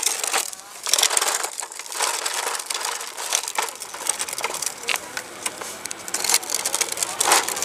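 Plastic wheels of a Fisher-Price push walker rolling over paving stones, a continuous crunching clatter with many small rattling clicks, heard close up from a camera fixed to the walker.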